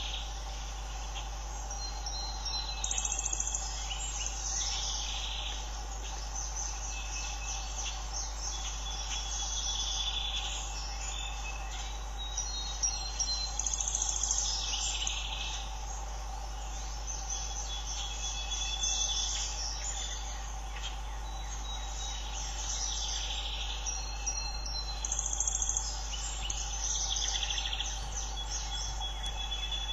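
Summer field ambience: small birds singing and chirping with high whistled notes, and insects calling, over a steady low hum.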